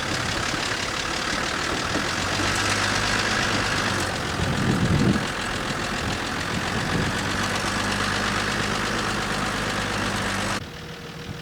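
A vehicle driving: a steady engine note under constant road noise. The sound drops away abruptly near the end.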